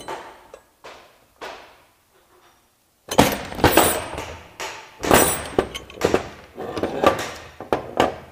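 Metal parts of a drive-chain CVT clanking and clinking on a steel workbench as the aluminium case cover is lifted off the pulley and chain assembly and the pieces are set down. There are a few light knocks at first, then a busy run of loud clanks and rattles from about three seconds in.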